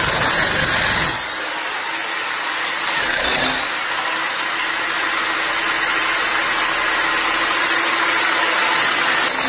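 Bosch 16 kg electric breaker hammer on a Makinex trolley, hammering steadily as its wide tile-smasher chisel head is pushed under ceramic floor tiles to lift them off the floor.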